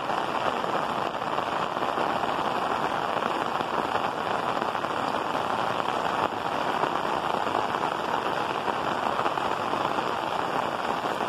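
Heavy rain falling steadily on clay-tile roofs: a dense, even hiss with no letup.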